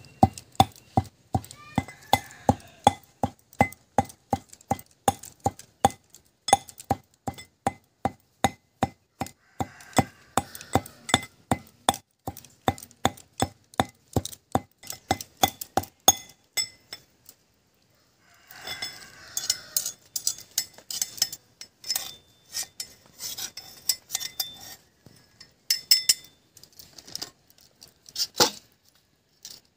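Metal pestle pounding garlic and chili in a small metal mortar: steady ringing clanks, about two strokes a second. After a short pause about 17 seconds in, irregular scraping and knocking of metal on metal as the paste is worked and tapped out into a steel bowl.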